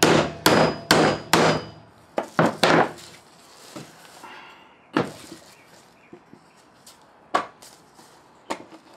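Hammer blows on a gear in a BMW X5 E53 transfer case, driving the gear out so the chain can be changed: four hard strikes about two a second, a quick run of three just after two seconds in, then a few lighter, spaced knocks.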